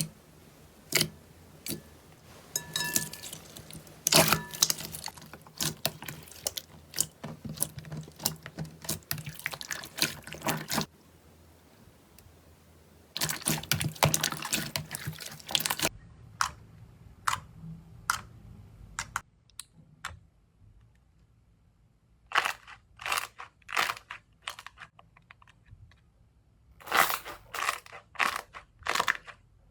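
Hands squeezing and poking slime: a run of sharp sticky clicks and crackles, with dense crackling stretches and a few quieter gaps between clusters of pops.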